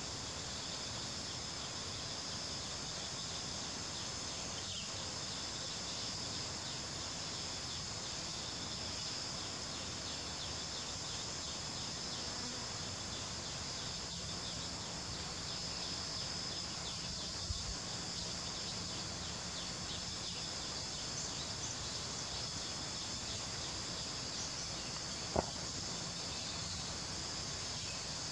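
Steady high-pitched chorus of insects, with two brief clicks, the sharper one about 25 seconds in.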